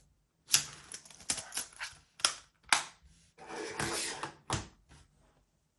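Palm Portable Keyboard being folded shut: a run of sharp plastic clicks and snaps from its folding hinges and sliding halves, with a brief rubbing slide about three and a half seconds in.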